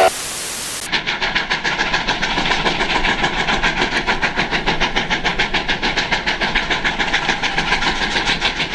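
Double-headed steam locomotives, Sierra Railway No. 28 among them, working hard. Their exhaust chuffs begin about a second in and come fast and close together, about seven a second.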